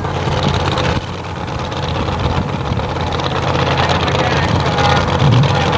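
Supercharged funny car engine idling, a steady low drone that grows slowly louder.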